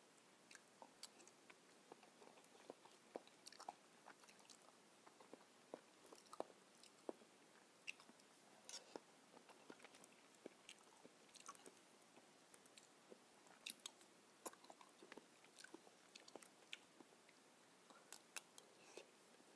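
Faint chewing and wet mouth clicks of someone eating soft, ripe papaya, a scatter of short clicks throughout, with small spoon sounds as the flesh is scooped from the skin.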